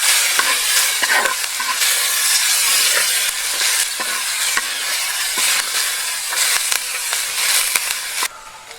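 Food sizzling and frying in a hot pan while it is stirred, with frequent clicks and knocks of the stirring utensil against the pan. The sizzle cuts off suddenly near the end.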